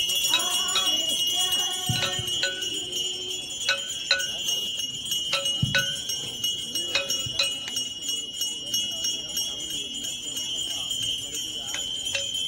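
Brass hand bells rung continuously for a Hindu aarti: a steady high jingling with sharper clangs about every half second. Voices chant along through the first few seconds.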